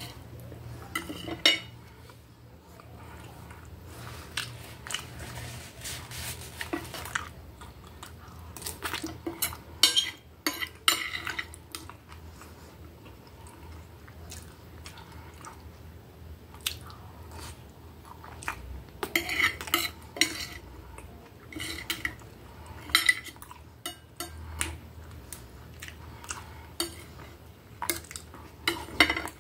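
Metal fork and knife clinking and scraping against a dinner plate in irregular clusters while food is cut and gathered, each tap with a short ring.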